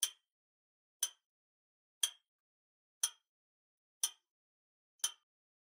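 Countdown-timer clock ticking as a sound effect: six sharp ticks, one each second, with dead silence between them.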